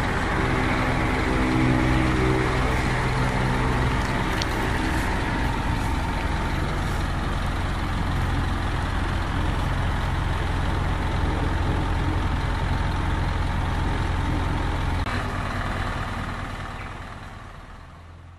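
Isuzu Elf NPR truck's diesel engine idling steadily, fading out near the end.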